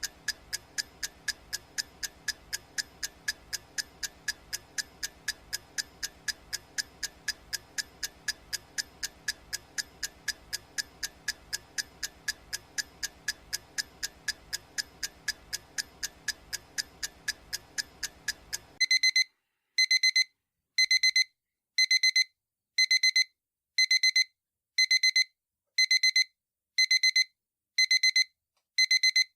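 Countdown-timer clock ticking quickly and steadily. About 19 seconds in, the ticking stops and an electronic alarm-clock beep sounds about once a second, a high tone each time: the countdown has reached zero.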